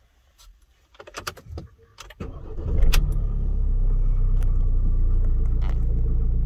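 Keys jangling and clicking in the ignition of a Ford campervan, then the engine starts a little over two seconds in and settles into a steady idle, heard from inside the cab.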